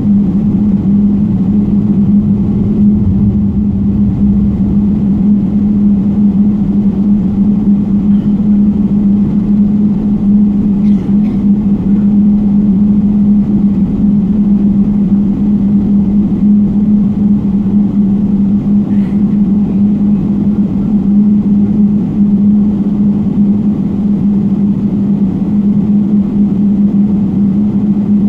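Cabin noise inside a Boeing 777 taxiing: the engines' steady drone at low power, with a constant low hum running through it.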